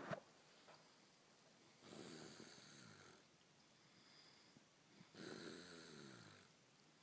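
A man snoring faintly in his sleep: two snores, each about a second and a half long and some three seconds apart.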